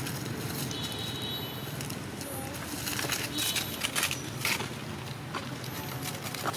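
Outdoor ambience: a steady low rumble, with dry leaves crackling under a small monkey's steps around the middle and a few high chirps.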